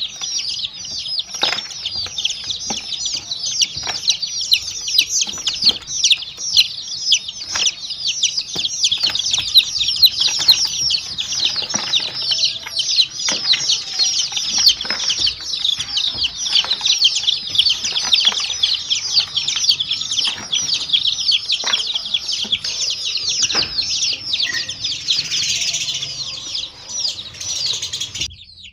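Many baby chicks peeping continuously, their high, falling chirps overlapping densely, with scattered faint taps underneath.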